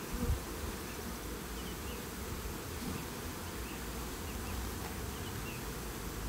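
Honeybees buzzing steadily around an opened hive, with a light knock about a third of a second in as a wooden hive box is handled.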